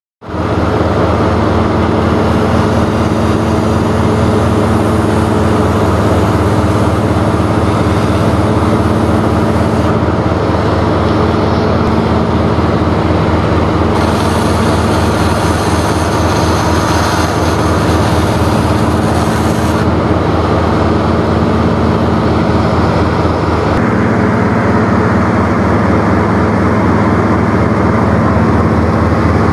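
Treadmill drive motor running a sanding belt over the treadmill's rollers: a steady hum with a fast, even pulse. For about six seconds in the middle, a steel wrench is held against the moving belt and the hiss of it being sanded joins in.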